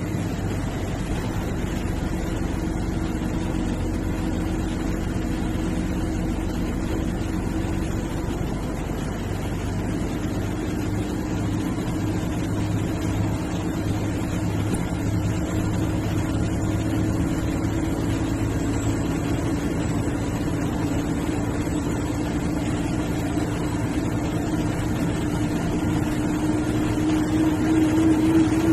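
Engine and road noise of a moving bus, a steady drone whose engine note grows louder near the end.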